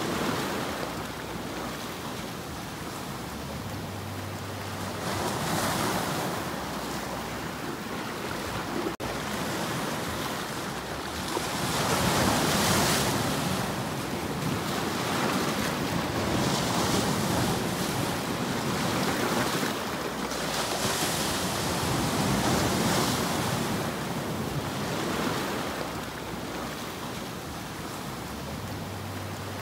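Sea waves breaking and splashing over shore rocks, the surf swelling and easing every few seconds.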